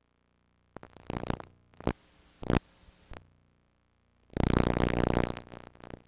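Short synthesizer music sting: after a moment of silence come a few quick electronic hits, then a louder, fuller chord about four seconds in that fades away.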